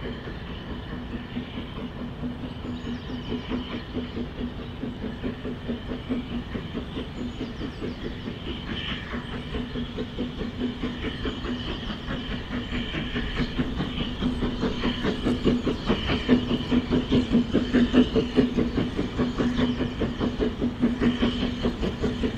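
Steam train running on the line, its wheels clattering rhythmically over the rail joints under a steady rolling hum, growing louder toward the end as it comes closer.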